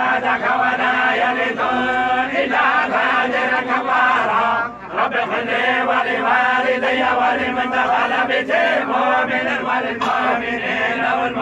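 A group of men reciting the Quran together in a steady, melodic chant, their voices moving as one line. There is a brief pause for breath a little before the middle.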